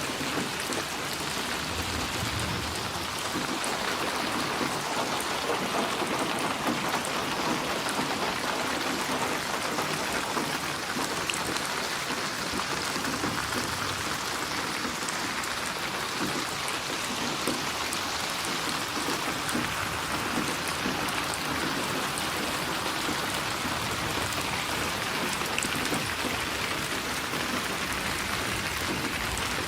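Steady rain falling, an even hiss of many drops, with a brief low rumble about two seconds in.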